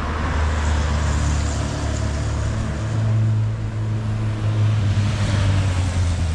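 A vehicle engine running close by with a steady low hum, its pitch stepping up about three seconds in and settling back toward the end, over street traffic noise.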